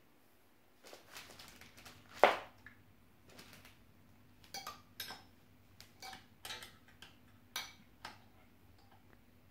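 Scattered metal clinks and knocks of a chainsaw guide bar and chain being worked onto a Husqvarna 395XP power head, with one sharper clank about two seconds in and several lighter ringing clinks after.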